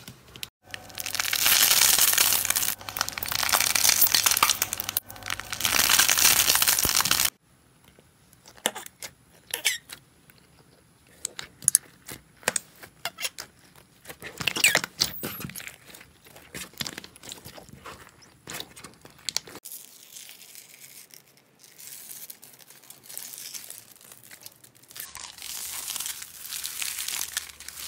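Hands squeezing and kneading slime. First several seconds of loud, dense crinkly squishing. Then scattered sticky pops and clicks as clear jelly-cube slime is pressed, and near the end a denser crackling as foam-bead slime is stretched.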